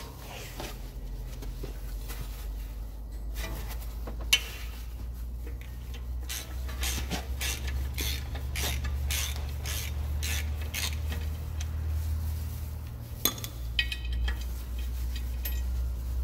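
Metal clinking and knocking as a BMW 750i brake rotor is worked loose from its hub, a few sharp clinks a second through the middle, with one sharp knock about four seconds in. A steady low hum runs underneath.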